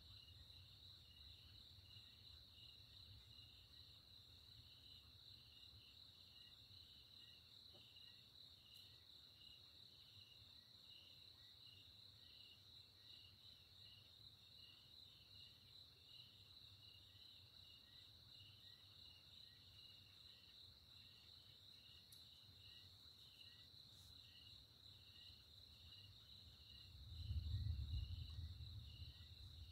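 Crickets and other night insects trilling steadily, one call pulsing in a regular beat. Near the end, a low rumble of distant thunder swells up and fades.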